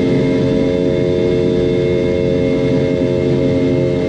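Boeing 717's rear-mounted Rolls-Royce BR715 turbofan engines heard from inside the rear cabin, a steady whine with several held tones over a low rumble as the aircraft rolls along the runway.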